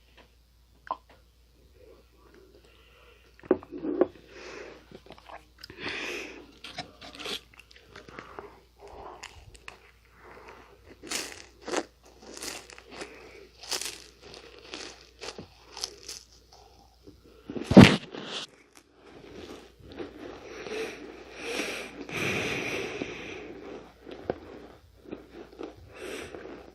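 Close-miked bites and chewing of Nunettine flaky puff pastry cookies, crisp crackling crunches in quick runs, with one sharp, loud crack a little past the middle.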